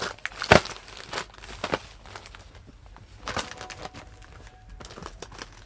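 Plastic clothing packets crinkling and rustling as packed baby garments are handled, in irregular crackles with a sharp one about half a second in.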